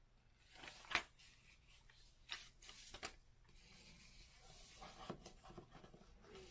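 Paper rustling as a folded facsimile letter is folded up and tucked back into a book, with a sharp crackle about a second in, two smaller ones a little later, then fainter rustling.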